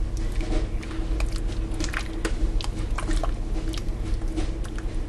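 Wooden spoon stirring thick clam chowder and freshly added heavy cream in a stainless steel pot: irregular wet squishing with light clicks, over a steady low hum.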